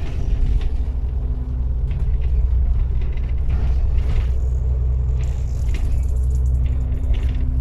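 Double-decker bus running, heard from inside on the upper deck: a steady low engine and road rumble with a faint steady hum and a few light rattles.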